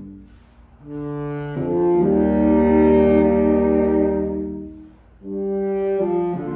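Quintet of five Yanagisawa baritone saxophones playing slow, sustained chords. A held chord dies away at the start; a new chord enters about a second in, swells and holds, fades out around five seconds in, and another chord comes in just after.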